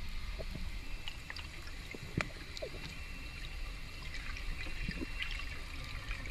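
Underwater ambience: a steady low rumble of moving water with scattered faint clicks and crackles, and one sharper click about two seconds in.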